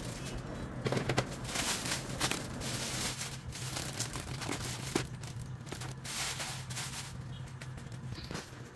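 Plastic food packaging rustling and crinkling as packets of spaghetti and boxes of chocolate are handled and laid on a counter, with scattered light knocks. A steady low hum sits underneath and fades near the end.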